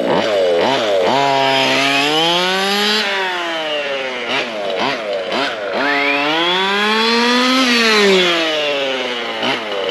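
ESP 30.5cc two-stroke race engine of a large-scale RC truck being blipped and then opened up twice in long rising revs that fall away as the throttle is let off, the on-off throttle pattern of a new engine being run in.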